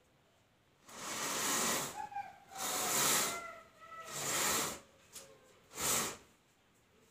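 Runners of a ceiling-rail mosquito net sliding along the rail as the net is pulled closed in four separate pulls, each a hissing swish. A faint, slowly falling whine sounds under the first two pulls.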